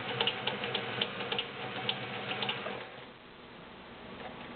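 Kenmore 1813 all-metal sewing machine running, a fast steady mechanical clatter of needle and feed, that stops about three seconds in. It is stitching the built-in stretch stitch.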